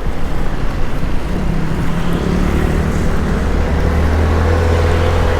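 Benelli Panarea 125 scooter's single-cylinder engine pulling under throttle, its drone growing stronger and rising in pitch over the second half, over steady wind and road noise on the microphone.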